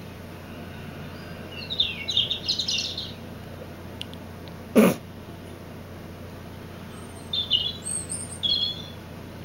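Recorded bird song played through small computer speakers: two short spells of quick, high chirping a few seconds apart. A single loud thump falls between them.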